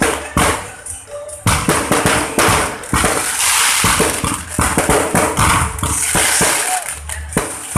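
Aerial fireworks bursting in quick succession: a string of sharp bangs over a continuous noisy crackle.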